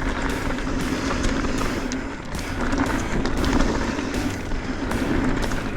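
Mountain bike descending a dirt trail through berms: steady rushing tyre and ride noise with scattered clicks and rattles from the bike over bumps.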